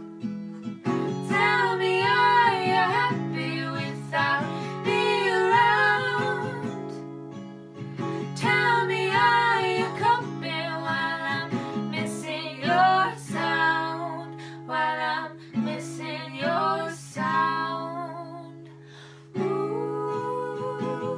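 A song: a woman's voice sings phrases with a slight waver in pitch over acoustic guitar accompaniment.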